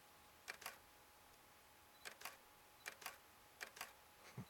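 Faint camera shutter clicks: four quick double clicks at uneven intervals, as the shutter is fired again and again.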